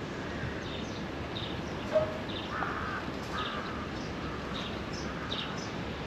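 Birds calling: short calls repeating about once a second over steady background noise, with a brief knock about two seconds in.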